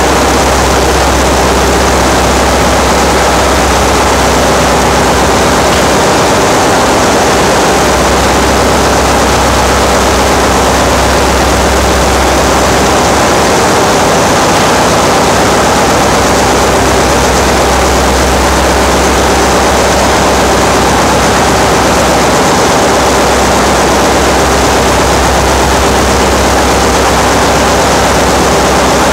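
Ship's engine-room machinery running: a loud, steady mechanical din with a deep hum underneath that dips out briefly a few times.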